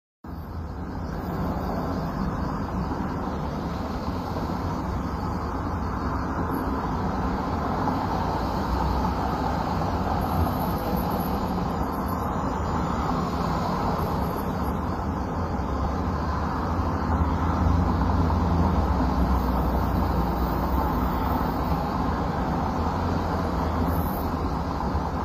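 Recorded city street ambience: a steady rumble of traffic and street noise, which cuts in suddenly from silence at the start.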